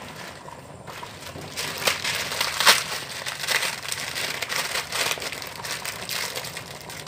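Plastic Indomie instant-noodle packet crinkling and crackling as it is handled and torn open, starting about a second and a half in, loudest a little before the middle.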